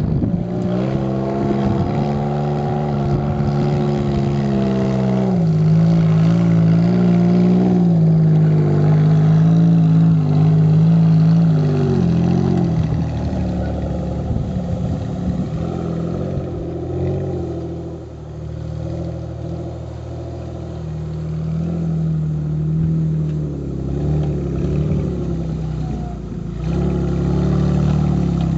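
Off-road trial buggy's engine revving and labouring under load as it climbs over obstacles, its pitch rising and falling with the throttle. It is loudest about a third of the way in and eases briefly a little past the middle.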